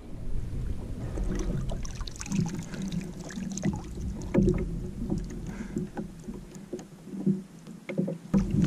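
Handling noise as a dentex is lifted from the sea in a landing net and brought aboard a plastic kayak: irregular knocks, clicks and rustles over a low rumble, the rumble dropping away for a while after about six and a half seconds.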